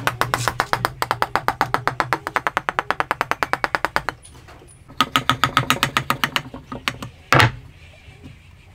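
Hand file or rasp scraping a wooden joint in fast, even back-and-forth strokes, about ten a second, in two runs with a pause between. One short, louder sound comes near the end.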